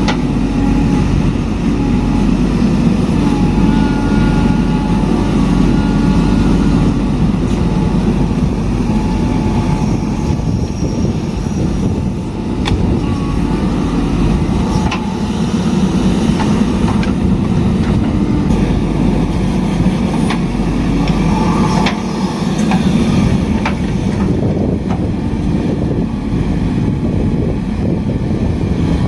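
Heavy diesel engine running steadily at working speed, with a few short sharp knocks now and then.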